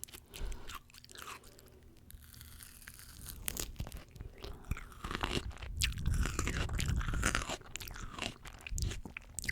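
Close-miked eating sounds of fresh fruit being bitten and chewed, with crunching. Sparse soft clicks for the first few seconds, then louder, dense chewing from about halfway through.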